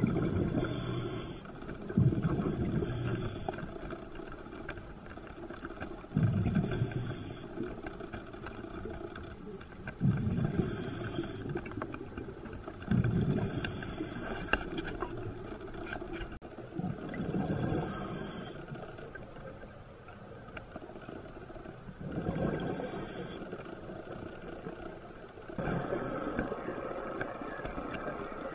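Scuba diver's regulator breathing underwater: a short hissing inhale, then a rumbling burst of exhaled bubbles, repeating about every four seconds.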